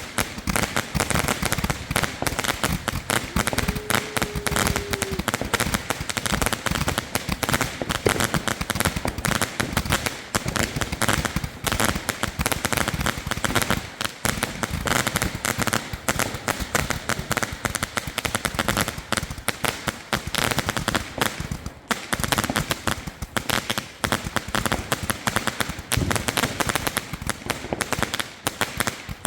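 Fireworks and firecrackers going off in a dense, continuous barrage of bangs and crackles, with no pause.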